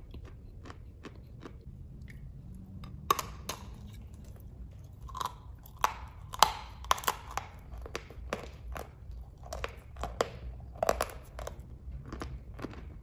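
Bites and chewing of a chunk of dry chalk, a run of sharp, dry crunches that grows denser and louder from about three seconds in and eases off near the end.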